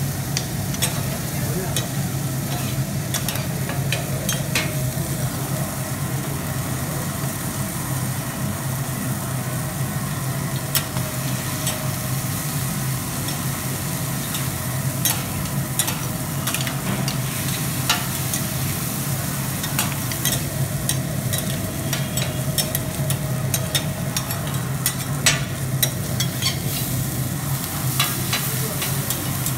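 Chicken and vegetables sizzling on a steel teppan griddle, with metal spatulas clicking and scraping on the steel as the food is stirred and chopped. The clicks come thicker in the second half, over a steady low hum.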